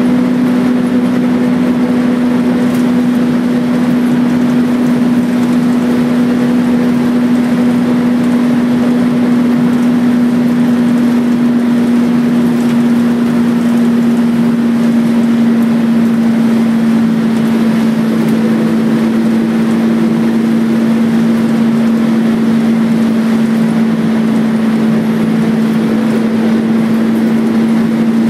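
Interior sound of a Wright Renown bus on a Volvo B10BLE chassis under way. Its rear-mounted horizontal six-cylinder diesel drones steadily over road noise, with a strong hum that sinks slightly in pitch as the bus holds its speed.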